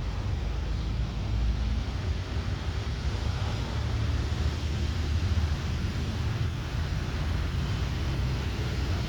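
Jet engines of a Boeing 787-9 Dreamliner flying over, a steady low rumble with a hiss above it.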